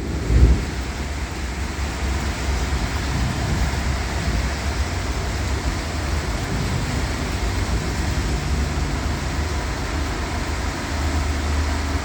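Steady rain and strong wind in a thunderstorm, with a continuous low rumble underneath and a brief low thump about half a second in.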